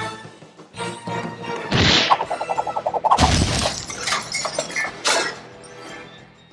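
Sound effects of an animated logo over music: a short hiss and a quick run of ticks, then a loud explosion about three seconds in, followed by glass shattering about five seconds in.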